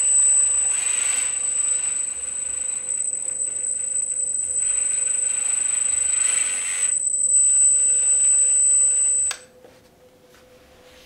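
Kabolite 336 (Huina 1:16) RC hydraulic excavator running: a steady high-pitched electric whine from its motor and hydraulic pump, swelling twice into a louder rush as the controls are worked and the upper body slews. It cuts off suddenly with a click about nine seconds in.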